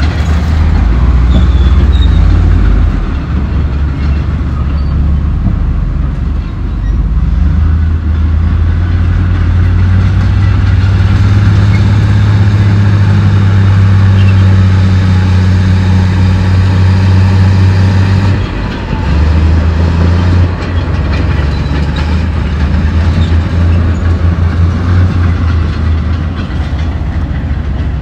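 Komatsu D68E crawler bulldozer's diesel engine running hard, with the rattle and clank of its steel tracks. The engine note shifts briefly about two-thirds of the way through.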